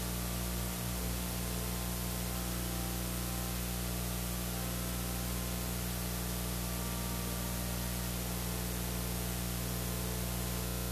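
Steady electrical hiss with a low mains-type hum underneath: noise from the recording or sound system, with no voices or music.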